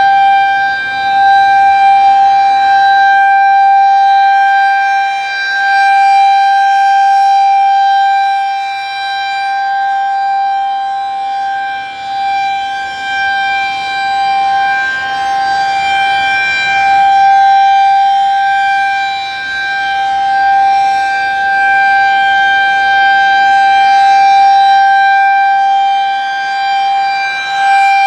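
Federal Signal 2001-SRNB outdoor warning siren sounding its steady Alert signal: a single held pitch with overtones. Its loudness swells and fades every few seconds as the rotating siren head sweeps around.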